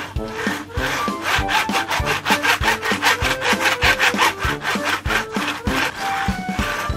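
Background music with a fast rasping, scraping rhythm of about six strokes a second over the notes and bass, strongest through the middle and easing off near the end.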